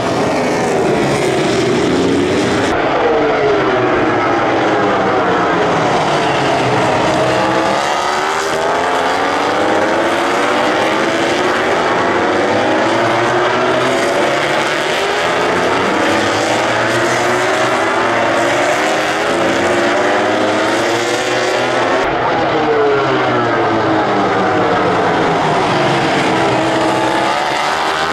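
MotoGP racing motorcycle engines going past one after another, several at once. Their pitch rises and falls repeatedly as they rev through the gears, and the engines overlap and cross each other in pitch.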